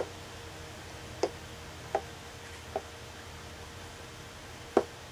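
Chess pieces set down on a chess board as moves are played: five light knocks spaced irregularly, the last, near the end, the loudest.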